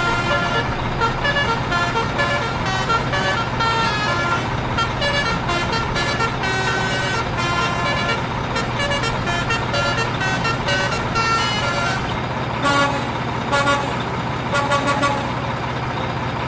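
Steady truck engine running sound with a constant low drone. Many short, high-pitched tones are scattered over it.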